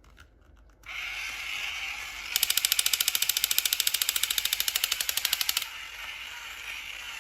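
A steady whirring noise, joined in the middle for about three seconds by a rapid, even clicking rattle of about ten clicks a second, like a small machine-gun or ratchet mechanism.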